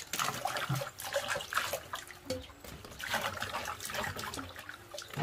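Small peeled onions being lifted out of a steel basin of water and dropped into a plastic colander: water splashing and dripping, with irregular soft knocks as the onions land.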